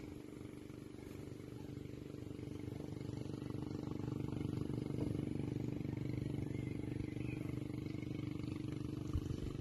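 An engine running steadily, a low drone that grows louder over the first few seconds and then holds.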